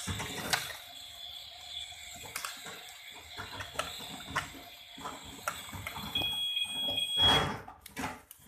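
Small plastic toy pieces being handled, clicking and knocking many times, with a high electronic beep tone from about six to seven seconds in and a brief loud rustling rush just after.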